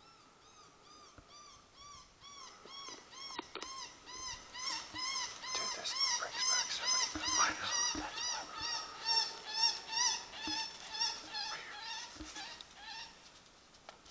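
A long, even series of arching yelps, about two a second, each rising and falling in pitch. They grow louder toward the middle and fade near the end.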